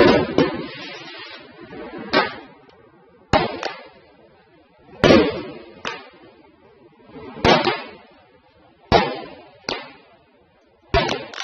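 Fireworks shells bursting overhead: about a dozen sharp bangs a second or two apart, some in close pairs, each trailing off in a fading rumble.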